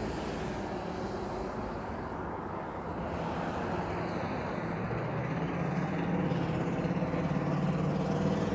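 Road traffic, with a motor vehicle's engine hum growing louder over the last few seconds.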